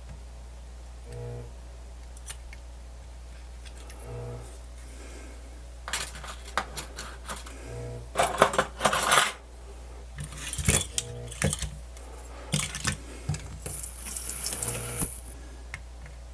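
Small metal tools and parts clattering and clicking on a workbench as they are picked up and set down, in irregular bursts through the middle, loudest a little past the middle, over a steady low hum.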